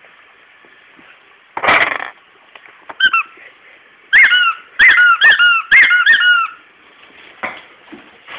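Squeaky Kong dog toy being chewed and squeezed by a dog: one squeak about three seconds in, then a quick run of about five squeaks, each rising and falling in pitch. A short noisy scuffle comes just before, near two seconds in.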